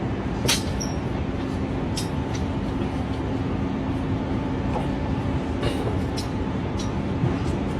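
Steady low machinery rumble with a constant hum, and a few sharp knocks or clicks scattered through it.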